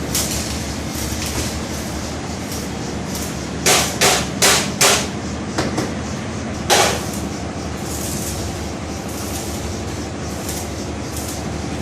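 Blacksmith's hammer striking metal: four quick, evenly spaced blows about four seconds in, then two lighter taps and one more hard blow, over a steady background rumble.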